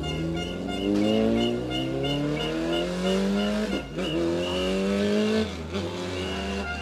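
Race car engine accelerating hard, its pitch climbing steadily, with upshifts about four seconds and five and a half seconds in.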